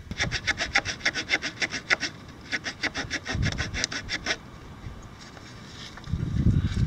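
Short fine-toothed saw blade of a Victorinox Swiss Army Knife Camper cutting through a dry dead branch in quick back-and-forth strokes, about five a second. Two runs of sawing with a brief pause between them, stopping about four and a half seconds in; low handling noise follows near the end.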